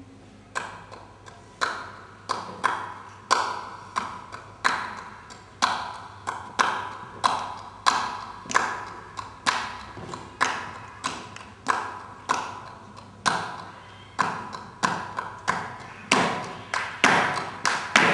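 Flamenco footwork (zapateado): shoe strikes on a wooden stage floor in a steady rhythm of about one and a half a second, each ringing briefly in the hall. The strikes grow louder and quicker over the last couple of seconds.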